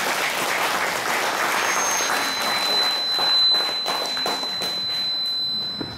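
Audience applauding, dense clapping that dies away at the end. A thin, high, steady tone sounds over it from about two seconds in.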